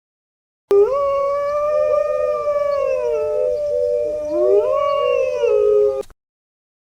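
Dogs howling: long, overlapping pitched howls from more than one voice, one held steady while another wavers and glides. It starts about a second in and cuts off abruptly near the end.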